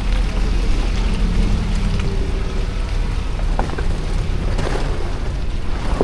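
Lexus GX470's V8 engine running at low revs as the truck crawls over an iced-over trail, with tyres crackling over the ice and a few short sharp knocks.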